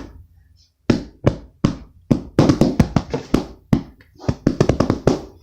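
A drum played with the hands in a short made-up beat: a string of quick, uneven taps starting about a second in.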